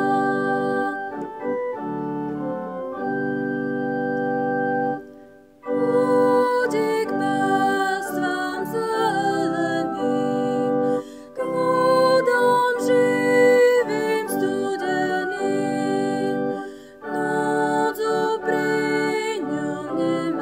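Organ playing a hymn in sustained chords, phrase by phrase, with brief breaks between phrases about five, eleven and seventeen seconds in.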